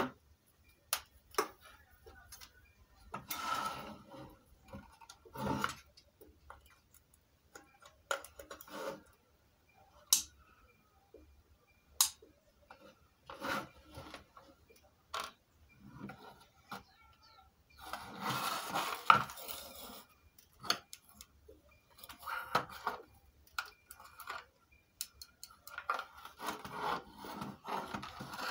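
Handling noise from a speaker cabinet and its loose wiring being worked on: irregular clicks and knocks with stretches of rubbing and scraping, the longest about two-thirds of the way in and another near the end as the cabinet is shifted.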